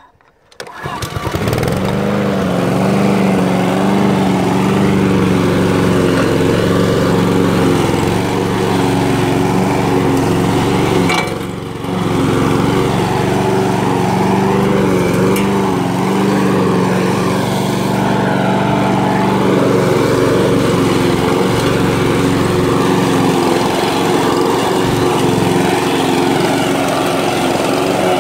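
Petrol walk-behind lawn mower engine rising to full speed about a second in, then running steadily while mowing grass, its pitch wavering a little. It dips briefly near the middle.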